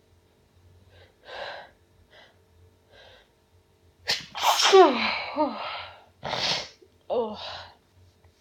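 A woman sneezing. A few short sharp inhales come first, then three sneezes in quick succession from about four seconds in. The first sneeze is the loudest and longest, with a voiced cry that falls in pitch.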